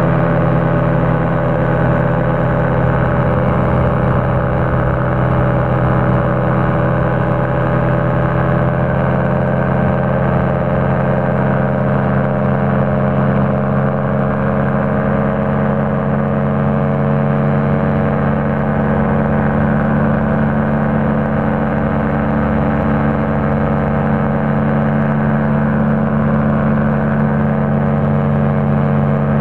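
Two-stroke Rotax 503 engine and propeller of an Excalibur light aircraft in level flight, running at a steady cruise power as a loud, even drone.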